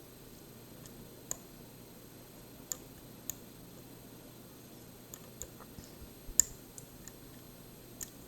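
Light metallic clicks of a homemade flag pick working the pin tumblers of a DOM IX 10 dimple lock under tension: about a dozen scattered clicks, the loudest about six seconds in.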